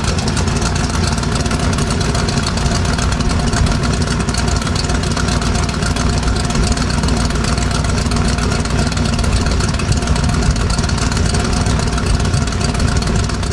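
A loud engine idling steadily, with an even running pulse and no change in speed.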